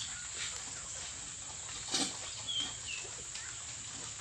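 A single sharp knock about two seconds in, then two short, high chirps of a bird, each falling slightly in pitch, over a steady high hiss.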